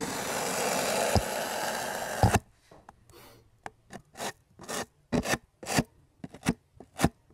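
Hot screwdriver tip scraping along a polystyrene foam lid, cutting a groove in the foam. There is a steady rubbing scrape for about two seconds, then a run of short, separate strokes.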